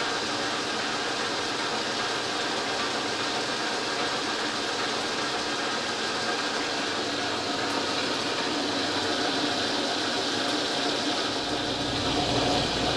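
South Bend lathe running and single-point cutting an Acme thread on a steel rod: a steady mechanical whir of motor and gearing with cutting noise. A deeper hum comes in about a second before the end.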